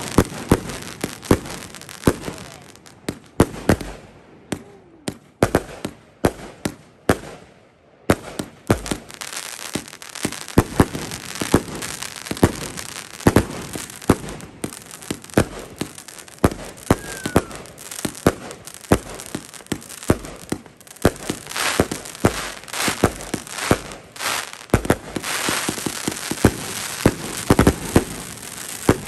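Consumer firework cakes firing: a fast, irregular string of sharp bangs, often several a second, over a steady crackling hiss. The bangs thin out for a few seconds about five seconds in, then pick up again.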